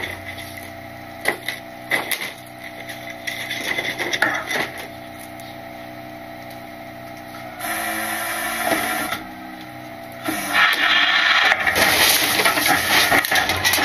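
Rear-loader garbage truck (Load Master Legacy) with its engine running steadily while trash knocks into the hopper, then the hydraulic packer running and crushing the load. The loudest part is a dense cracking and breaking from about ten seconds in.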